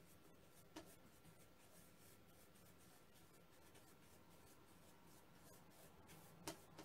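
Faint scratchy strokes of a paintbrush spreading paint on canvas, with two small clicks, one about a second in and one near the end.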